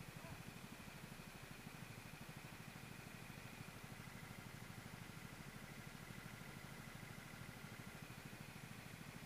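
Racing kart's small single-cylinder engine running steadily on track, a fast, even pulsing with a faint whine above it.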